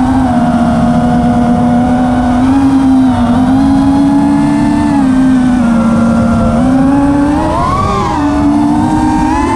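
FPV quadcopter's brushless motors and propellers whining, the pitch rising and falling with the throttle, with a quick climb in pitch about eight seconds in. A rough rush of air sits underneath.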